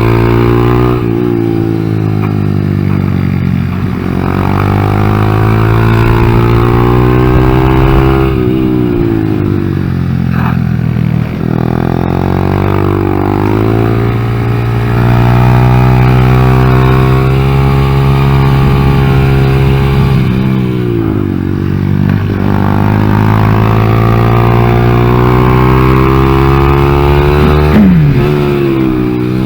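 Honda Grom's 125 cc single-cylinder four-stroke engine running under load, its revs rising and falling over and over with several drops off the throttle. The engine bogs when the throttle is opened, because the ECU has not yet been reset after the engine swap.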